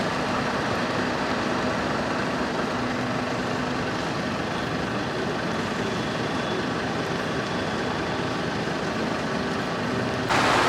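Fire trucks' engines running steadily with a faint hum, no sirens; the noise steps up abruptly near the end.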